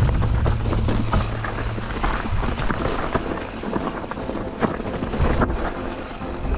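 Wind rushing over the microphone, mixed with the crunch of a mountain bike's tyres on a dirt singletrack and the rattle of the bike, with many small knocks as it rolls over bumps.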